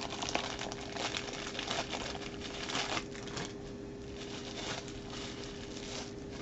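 Thin plastic bag crinkling and rustling as it is opened by hand, busiest for about the first three and a half seconds, then only a few scattered rustles. A faint steady hum runs underneath.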